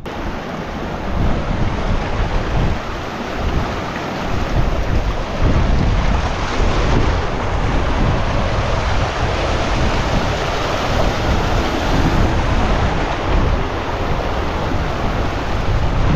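Wind buffeting the microphone in irregular gusts over a steady rushing hiss, getting louder about five seconds in.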